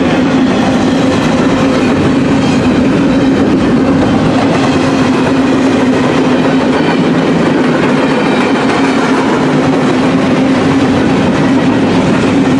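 Empty intermodal well cars of a BNSF freight train rolling past at track side: steady, loud wheel-on-rail noise with a constant hum underneath.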